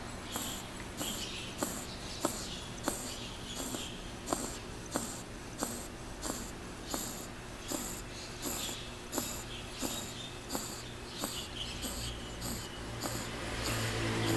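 French bulldog puppy snoring in its sleep: a short clicking snort with each quick breath, about three every two seconds, over a steady high, rapid chirping. A low rumble grows near the end.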